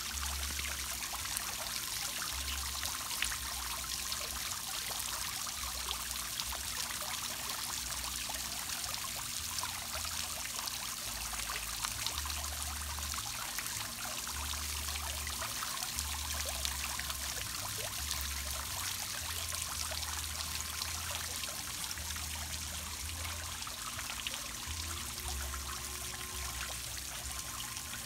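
Water splashing and trickling steadily as it falls over rocks into a backyard garden pond.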